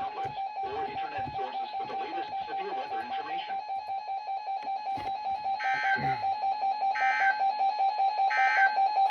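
Emergency Alert System broadcast audio: background music with a steady tone pulsing rapidly throughout. About two-thirds of the way through come three short buzzy data bursts, a little over a second apart, which have the pattern of the SAME end-of-message code that closes an EAS alert.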